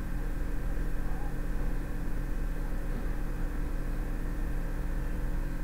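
Steady low hum with a hiss over it, unchanging throughout: background noise of the recording setup, with no distinct event.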